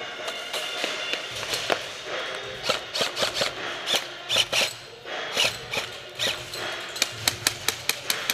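Airsoft gun firing single semi-automatic shots as sharp clicks, irregular at first, then a rapid string of about five a second near the end.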